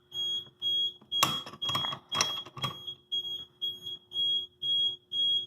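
Fire alarm sounder beeping a high-pitched tone in an even, steady rhythm of about two beeps a second. A few sharp clicks or knocks break in between about one and three seconds in.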